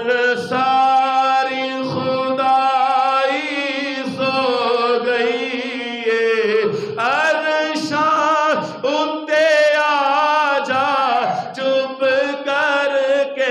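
A solo man singing a Punjabi naat unaccompanied, in long held notes that waver and bend in pitch, with brief breaths between phrases.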